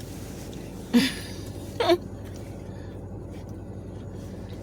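A baby giving two short fussing whimpers, each dropping in pitch, about a second apart, over a steady low hum.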